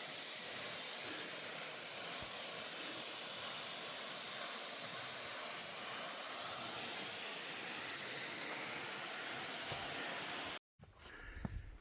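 Calf Creek's water running over sandstone, a steady, even rush that cuts off suddenly near the end.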